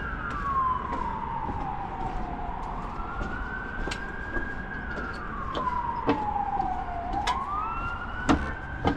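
Emergency vehicle siren wailing, its pitch sliding slowly down and then back up in two long cycles. A few sharp knocks cut in, the loudest near the end.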